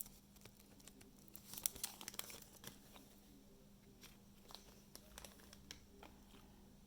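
Faint crinkling and light clicking of trading cards and pack wrappers being handled, with a brief flurry of crinkles about a second and a half in.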